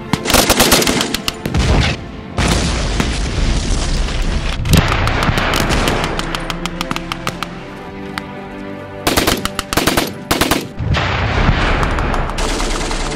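Belt-fed machine gun firing rapid bursts, heaviest near the start and again about two-thirds of the way through, with scattered single shots between, over background music.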